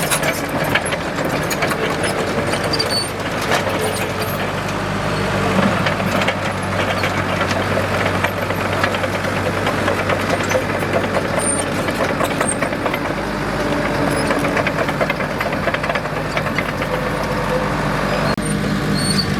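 Komatsu D37EX crawler bulldozer's diesel engine running steadily, with a rapid clatter of clicks and knocks through it.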